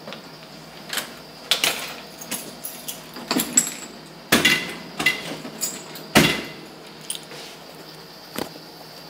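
A series of irregular sharp knocks and clicks, about a dozen over several seconds, loudest about four and six seconds in.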